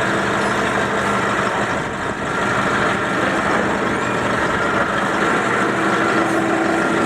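Forklift engine idling steadily, with a steady hum joining in near the end.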